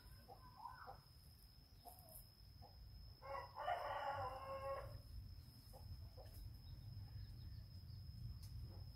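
A rooster crows once, about three seconds in, a single call lasting under two seconds, with a faint steady high tone underneath.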